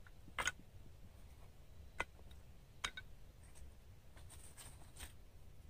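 Faint, scattered clicks and light scraping of small sticks being handled and worked into kindling, a few sharp ticks spread through with a small cluster near the end.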